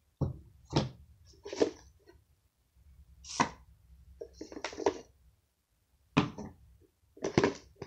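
Handling noises from small slime containers being picked up, knocked together and set down on a surface: about seven short knocks and rustles with pauses between them.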